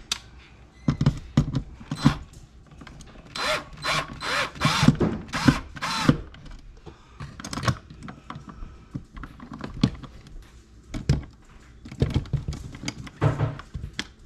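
Power drill run in several short bursts, among clicks and knocks of tools being handled.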